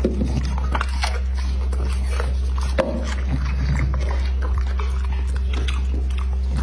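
American Bully dog biting and crunching a raw vegetable slice, with irregular crisp chewing clicks, over a steady low hum.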